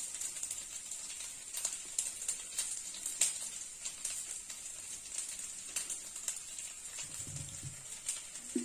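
Rice flour being stirred into water in a bowl: light, irregular clicks and taps of the stirring over a steady high hiss.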